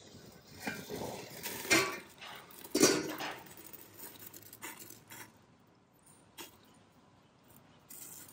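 Stainless steel steamer lid lifted off the pot with two loud metallic clanks, followed by a few lighter clinks of the plate and pot as the steamed dish is handled.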